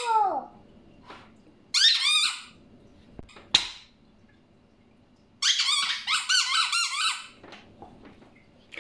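A squeaky rubber squeeze toy squeaking twice in long, high, wavering squeals, with a sharp click between them.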